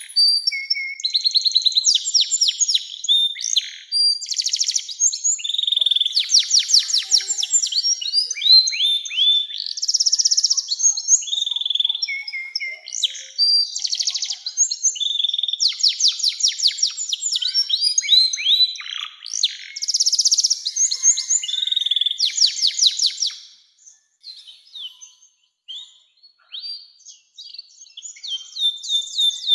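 Male domestic canary singing a long, continuous song of fast trills and rolls, mostly high-pitched, that breaks off about three-quarters of the way through into a few scattered quiet notes.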